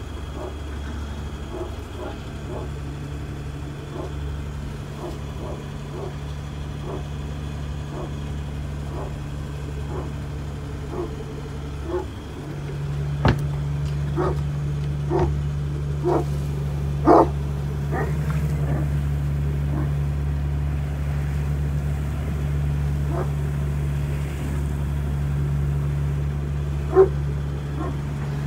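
Boat engine running steadily, with a series of short barks over it, one about every second, growing louder partway through as the engine sound also rises.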